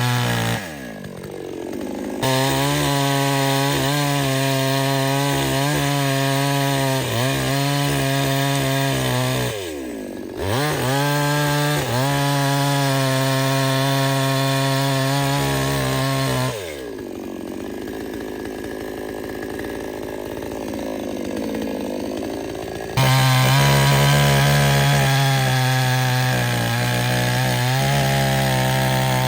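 Two-stroke chainsaw running at high revs while cutting wood. The engine falls off briefly about a second in and again around ten seconds, runs slower and quieter for about six seconds past the middle, then revs back up loudest near the end.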